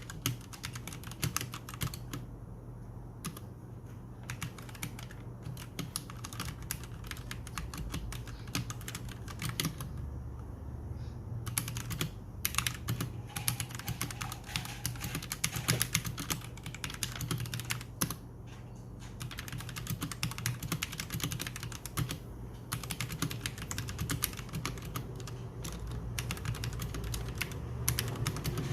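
Typing on a Royal Kludge G68 mechanical keyboard fitted with OEM-profile keycaps: a fast, steady run of keystroke clacks broken by a few short pauses.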